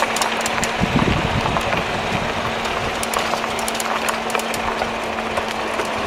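Vehicle engine idling: a steady running noise with a low steady hum and scattered light ticks.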